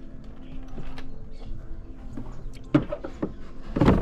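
Handling knocks on a plastic kayak deck as fish are strung on a line: a few sharp knocks about three-quarters of the way through, then a louder thump near the end.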